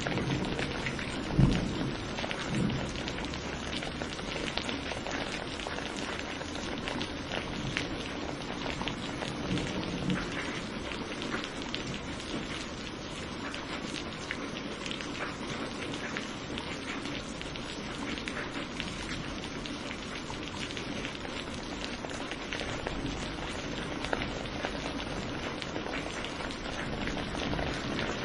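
Steady heavy rain pattering on surfaces during a thunderstorm, with thunder rumbling low near the start and a loud low thud about a second and a half in, then a fainter rumble about ten seconds in.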